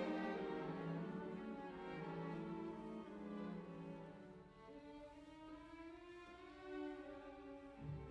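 Background music: bowed strings, violin and cello, playing slow held notes.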